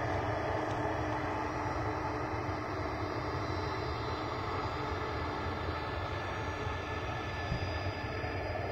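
Regional jet's engines running at high power on the runway: a steady, broad rumble with a faint steady hum through it.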